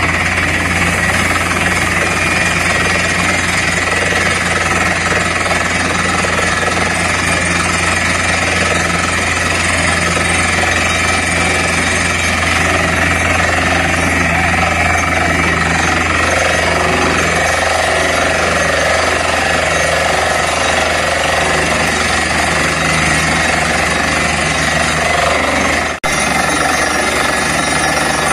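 Truck-mounted borewell rig drilling with its compressed-air down-the-hole hammer: a steady, loud machine noise of hammering drill, compressor and engine, while water is blown up out of the bore. The sound breaks for an instant near the end.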